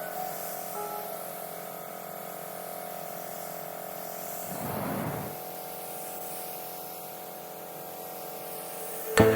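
Background music of sustained held tones, with a short swelling whoosh about halfway through and a sudden bright clinking hit near the end as a new phrase begins.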